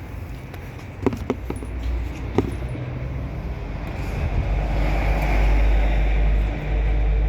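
Extol 20 V cordless chainsaw running, with a few sharp clicks in the first couple of seconds. The noise grows louder from about four and a half seconds in, over a deep rumble.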